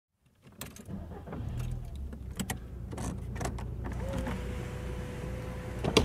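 Car engine idling with a steady low rumble, with scattered sharp clicks through the first few seconds. A steady whine comes in about four seconds in, and a loud click sounds near the end.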